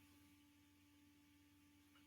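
Near silence: faint room tone with a steady low electrical hum.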